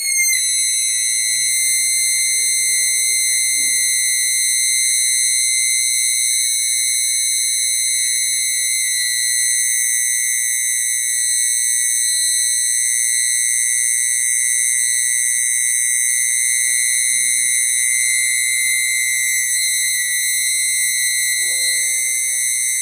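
The buzzer of a 9 V fire-alarm circuit sounds a loud, steady, high-pitched continuous tone. It switches on abruptly, with a brief slight slide down in pitch before it settles. This is the alarm going off because heat on the tube-light starter has completed the circuit.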